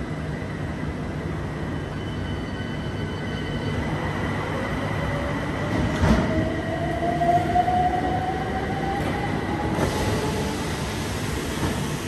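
A c2c electric train's sliding passenger doors closing with knocks and thuds, over the train's steady low hum and a steady high tone. An electric train's motors whine slowly upward in pitch as it pulls away.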